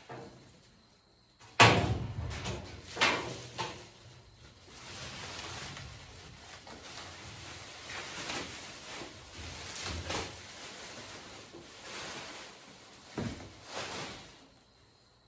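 Steel drawers and locker door of a U.S. General Series 3 toolbox being opened, shut and handled. A sharp bang about a second and a half in is the loudest sound, followed by several more knocks and a stretch of rustling.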